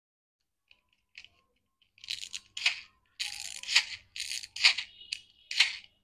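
Small plastic toys and a plastic egg capsule being handled: a few faint clicks, then from about two seconds in a run of short, sharp plastic rattles and rustles.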